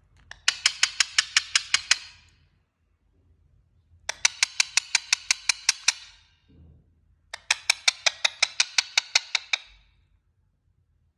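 Indian ringneck parrot making a rapid clicking sound, in three runs of about ten clicks each, roughly seven clicks a second.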